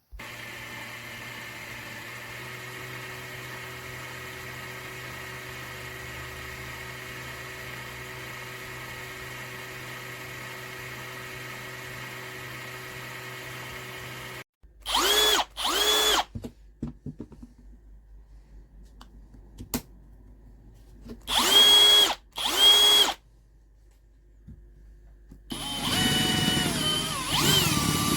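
Cordless drill motor running steadily for about fourteen seconds, then cutting off. After that it is pulsed twice in quick pairs, spinning up sharply each time, and near the end it runs for about three seconds with its speed changing.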